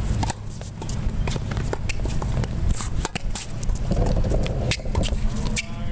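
Tennis rally on a hard court: sharp racket strikes and ball bounces, with scattered footsteps and shoe scuffs, over a steady low rumble.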